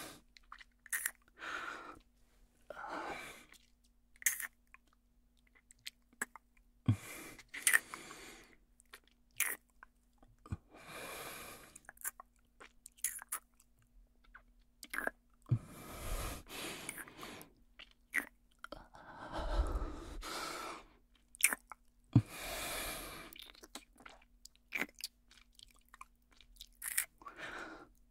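Close-miked kissing sounds: wet lip smacks and mouth clicks, scattered irregularly between breaths of about a second each.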